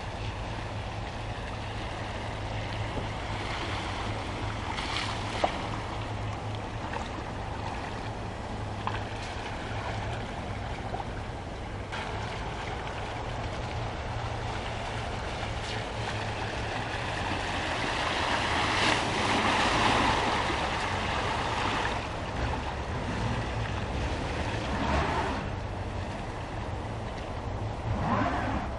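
Subaru Forester e-Boxer SUVs driving slowly through a muddy puddle, tyres sloshing and splashing through the water over a steady low rumble. The splashing swells loudest about two-thirds of the way through, with shorter swells near the end as the next car passes.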